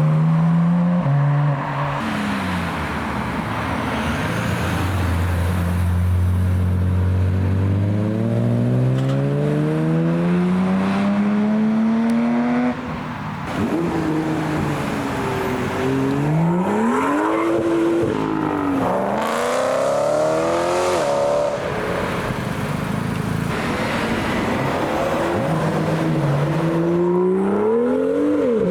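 Car engines pulling away one after another, the revs climbing through the gears: a long steady rise, a sudden drop about thirteen seconds in, then several shorter rises and falls, with another car rising again near the end.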